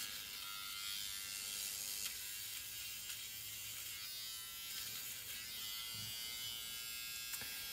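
Flawless Brows battery-powered eyebrow hair remover running with a quiet, steady buzz as it is moved over the eyebrow.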